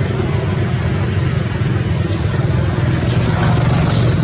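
An engine running steadily: a loud, even low rumble with a fast pulse in it.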